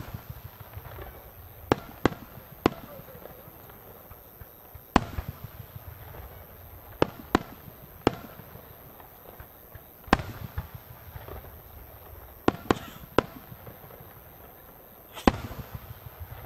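Aerial firework shells bursting overhead in about a dozen sharp bangs at irregular intervals, some in quick pairs. Each bang is followed by a low rumbling echo.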